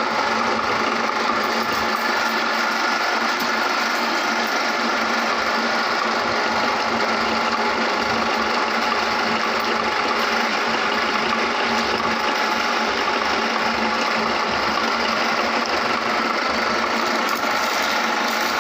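Electric meat grinder running steadily, its motor humming and grinding peanuts.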